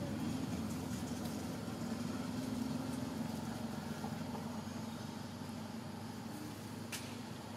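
A steady low hum of a running engine that fades slowly, with a single sharp click near the end.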